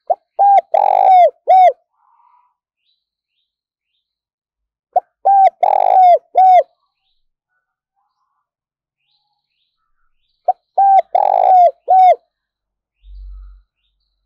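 Spotted dove cooing: three song phrases about five seconds apart, each a run of four notes with the third held longest.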